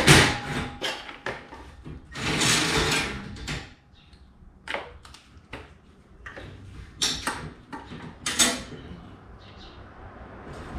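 Metal clanks and rattles of garage door track hardware being worked loose from a perforated ceiling hanger bracket. There is a longer, louder noisy stretch of about a second and a half about two seconds in, and a few sharp knocks near the end.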